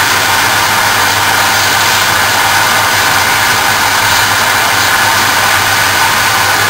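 JET bench wood lathe running steadily while sandpaper is held against a small spinning wooden handle, together with the steady rush of the dust extraction at the lathe, over a low motor hum.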